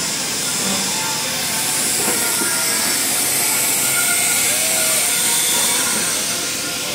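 Small park railroad train running, a steady loud hiss with rolling rail noise.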